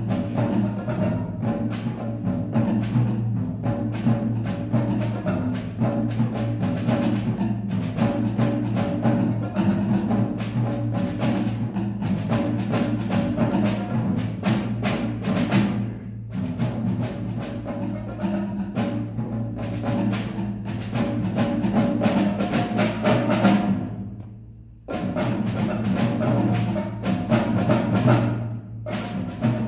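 A live percussion ensemble playing drums with sticks: snare drum, bongos and a pair of congas in a busy, fast pattern of strokes. The playing fades off briefly about three-quarters of the way through, then comes back in all at once.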